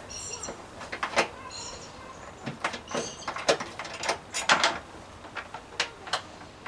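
Irregular clicks and light knocks of a screwdriver working a screw into the plastic rim of a Vespa scooter's under-seat compartment, with hands handling the parts. A few short high chirps come in the first three seconds.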